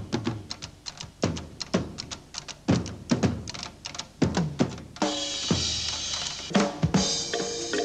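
Drum-led music: a run of heavy drum hits and quick snare-like strokes, then about five seconds in a cymbal crash and held notes come in.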